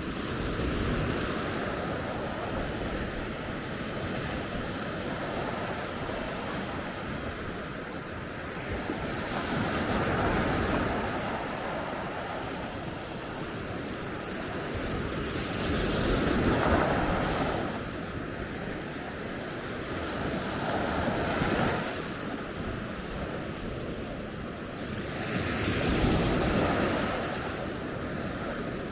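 Sea waves breaking and washing up a beach, the surf swelling and fading five times, with wind on the microphone.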